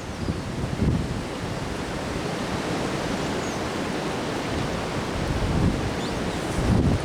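Windstorm wind blowing in a steady rush, with gusts buffeting the microphone about a second in and again near the end.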